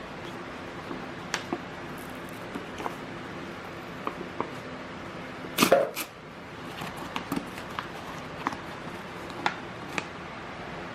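Scattered light clicks and knocks over a faint steady background hum, with one louder knock a little before six seconds in.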